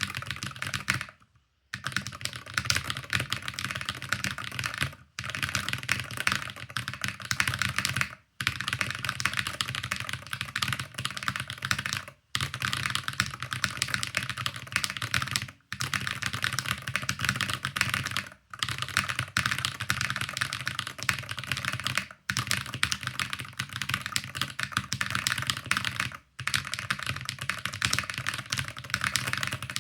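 Fast typing on a Luminkey Magger68 HE keyboard with Gateron Jade Pro magnetic switches. Dense runs of rapid keystrokes last a few seconds each, broken by brief pauses about every three to four seconds.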